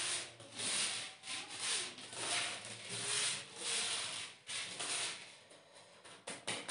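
Fingers rubbing and mixing a dry sugar and baking soda powder on paper: a gritty rubbing in repeated strokes that fades after about four and a half seconds.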